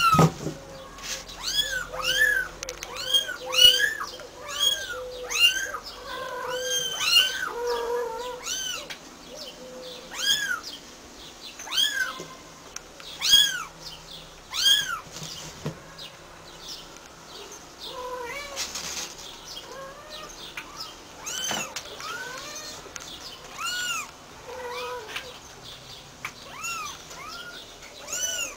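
Kittens mewing again and again in short, high-pitched calls, thickest in the first half and more spaced out later. Lower, shorter calls run alongside them for the first several seconds.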